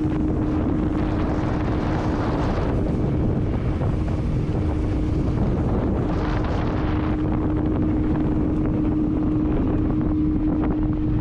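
A Boston Whaler's engine running steadily as the boat moves at a constant speed, a continuous hum with one steady tone, under the rush of wind on the microphone.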